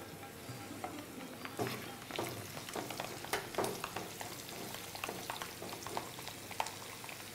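A metal spoon stirring spice powders into curd (yogurt) in a plastic bowl, with irregular scrapes and taps against the bowl's sides.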